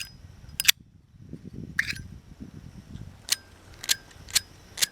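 Flint wheel of a fire-blackened, water-doused Zippo lighter being thumbed over and over: about seven short sharp clicks, coming faster near the end. It throws only a spark and does not light.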